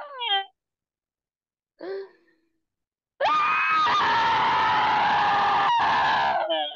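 A woman screaming to release rage in a scream-therapy session. The tail of one scream falls away at the start, a short cry comes about two seconds in, then one long, loud scream runs from about three seconds in, sliding slowly down in pitch before it breaks off near the end. It is heard over a video call, which drops to dead silence between the cries.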